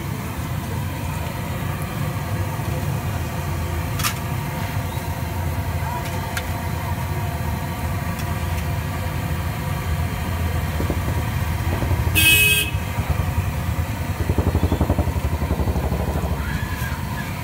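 Street traffic: a steady low rumble of passing vehicles, one short horn honk about twelve seconds in, then a motorcycle engine passing close by near the end.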